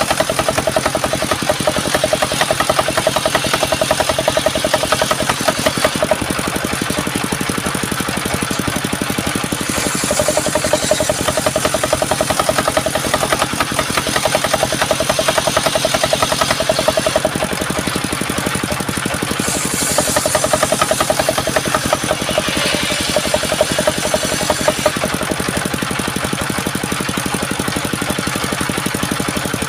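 Engine running steadily, its note and load shifting every several seconds, with brief higher hissy stretches.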